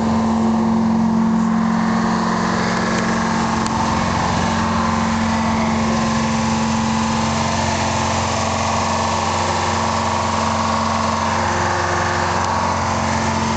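An engine idling steadily, an even hum with no change in speed.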